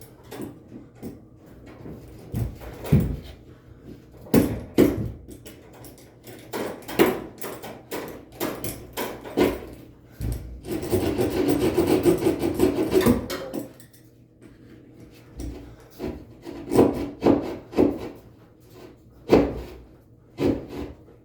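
A run of irregular knocks and scraping, with a rasping noise lasting about three seconds near the middle.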